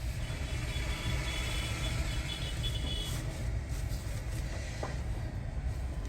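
Maruti Ritz petrol car driving, heard from inside the cabin: a steady low engine and road rumble.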